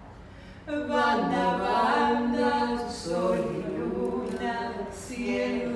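A woman singing a Spanish song unaccompanied, holding long notes with slides between them; the singing comes in strongly under a second in.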